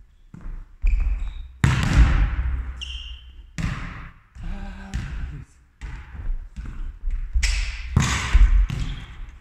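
Volleyballs being spiked: a series of sharp smacks of hand on ball and ball slamming and bouncing on the sports-hall floor, echoing in the large hall, the loudest about a second and a half in and near the end. A brief high squeak about three seconds in.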